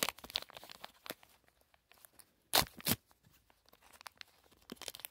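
Small paper and plastic toy packaging being handled and torn: scattered crinkly rustles, with two short, loud ripping tears a little over halfway through.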